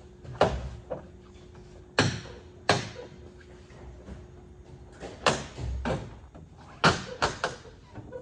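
Plastic aftermarket grille being pushed and knocked into place on a pickup's front end, its clips snapping in. It gives a series of about eight sharp knocks and snaps, several in quick succession near the middle and the end.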